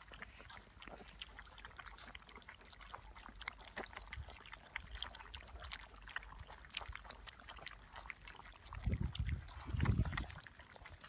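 A litter of golden retriever puppies lapping and slurping wet food from a stainless steel ring feeder: a dense, irregular run of small wet licks and smacks. A low rumble comes in near the end.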